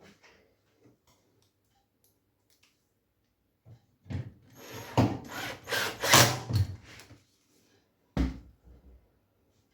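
Tumble dryer parts being handled during repair work: a few seconds of clattering and scraping, then a single sharp knock near the end.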